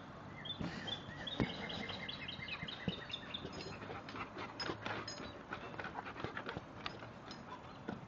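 A flock of chickens calling around a feeder: many short, high peeps repeated over and over, with a few soft knocks mixed in.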